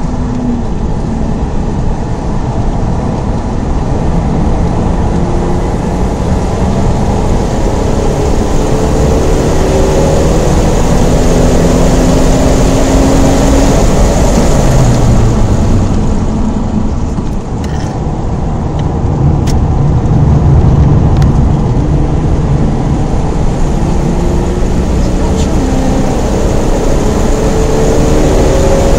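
Holden VT Commodore's 3.8 L Ecotec V6 under hard acceleration, heard from inside the cabin, its pitch climbing repeatedly as it pulls, with wind and tyre noise. Loudness dips briefly about two-thirds of the way through, then builds again.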